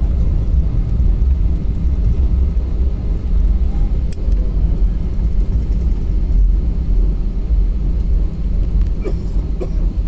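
Steady low rumble of a jet airliner taxiing, as heard inside the cabin beside the wing-mounted engine.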